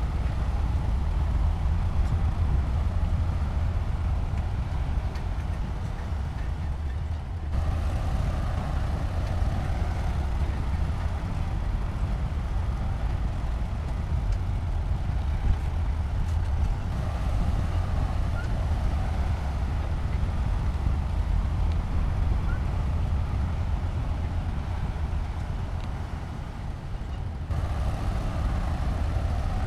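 Heavy earthmoving machinery's diesel engine running steadily with a deep low drone. The sound changes abruptly about seven seconds in and again near the end.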